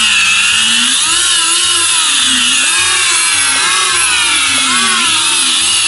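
Brushless motors of a Unicorn 220 racing quadcopter, spinning without propellers in a bench motor test, give a whine that rises and falls again and again as the throttle stick is moved up and down.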